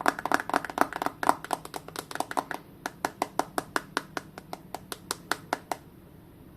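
A quick run of light, sharp clicks and taps, several a second, from hands working at the phone and its packaging; they grow sparser and stop near the end.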